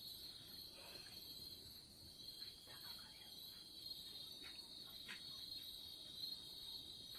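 Faint, steady, high-pitched chirring of night insects, with a few soft ticks.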